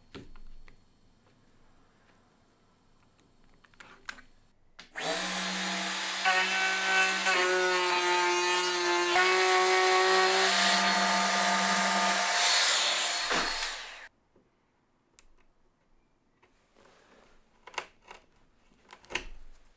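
Compact router with a straight cutter starts about five seconds in and runs for about nine seconds, cutting the shallow recess for a lock faceplate into a door edge; its whine steps up and down in pitch as it cuts, then stops. A few light chisel taps follow near the end as the recess is squared up.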